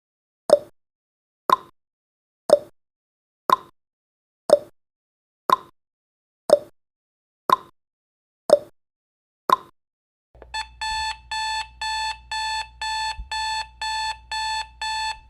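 Countdown timer sound effect: a clock ticking once a second in a tick-tock pattern, then, about ten seconds in as the count reaches zero, an alarm-clock alarm beeping rapidly, about two beeps a second.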